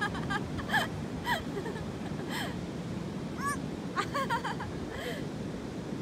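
Steady rush of surf and wind on the beach, with short high cries scattered over it every second or so.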